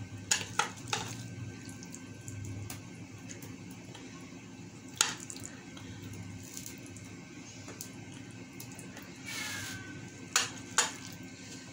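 Chicken and vegetable toppings being dropped by hand onto a sauced pizza base in a pan: a few sharp taps, the loudest about five seconds in and twice near the end, over a steady low hum.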